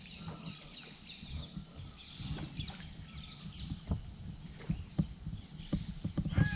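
Canoe being paddled on a calm lake: water swishing and lapping against the hull, with several sharp knocks in the second half. Birds chirp throughout, most busily in the first few seconds.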